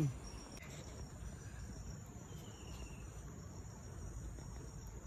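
Faint steady high-pitched drone of insects chirring, with a faint falling whistle about two and a half seconds in.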